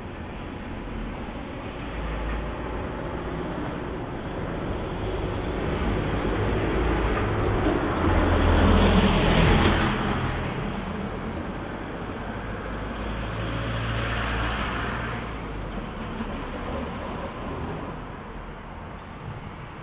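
Road traffic: a vehicle passes close about halfway through, the loudest moment, with tyre and engine noise rising and fading, and a second, quieter vehicle passes a few seconds later.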